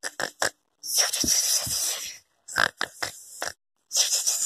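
A person performing a sleeping toy's exaggerated snoring like a pig: quick runs of short clicking snorts, each followed by a long hissing breath, twice over.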